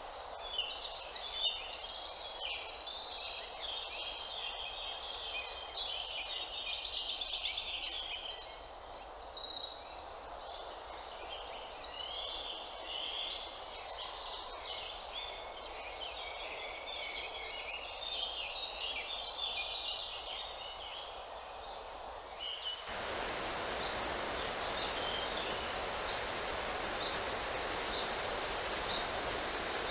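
Many songbirds singing at once in a dense chorus of chirps and trills, loudest a few seconds in. About three-quarters of the way through, the sound cuts abruptly to a steady rushing noise, with a single high bird note repeating about once a second.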